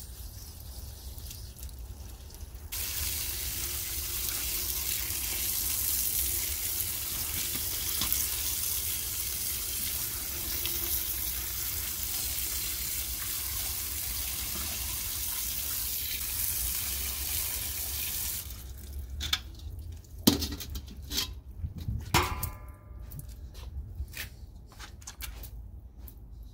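Running water pouring onto freshly pulled green garlic in a stainless-steel colander, a steady rush that starts about three seconds in and cuts off after about eighteen seconds. Then come a few knocks and clatters as the wet garlic and metal colander are handled.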